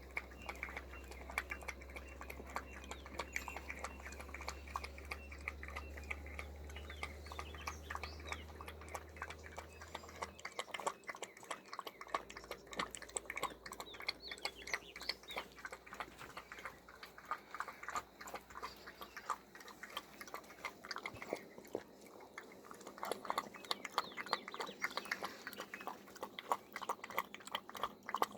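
A puppy lapping milk fast: a quick, continuous run of small wet licking clicks, louder in the last few seconds.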